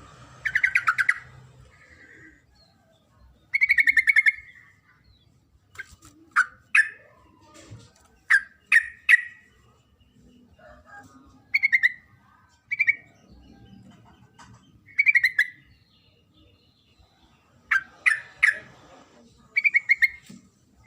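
Female yellow-vented bulbul calling: short chirps mixed with harsher buzzy, rattling calls, coming in bunches of two or three every second or two.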